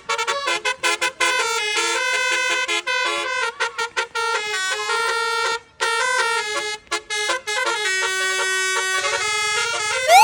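Bus musical horn (basuri) playing a tune: a string of loud horn notes that step from pitch to pitch with short breaks between phrases, ending in a fast rising sweep.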